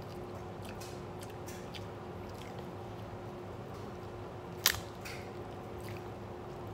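Quiet eating sounds of crab legs being picked apart by hand and chewed: faint scattered clicks, with one sharp click about two-thirds of the way through, over a steady hum.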